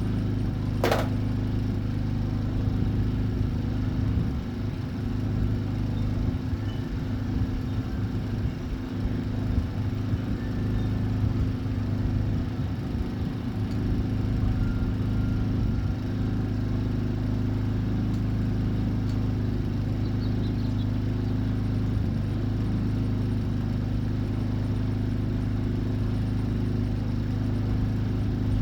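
A steady low machine hum, even in pitch and level, with one sharp click about a second in.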